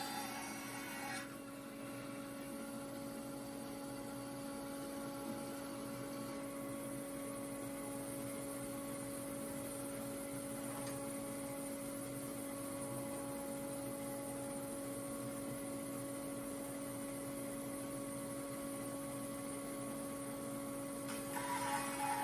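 Laguna 14BX bandsaw with a carbide-tipped blade running free between cuts, a steady hum. In the first second the blade finishes a cut through a sycamore log, and about 21 seconds in it starts cutting again with a louder, brighter sawing sound.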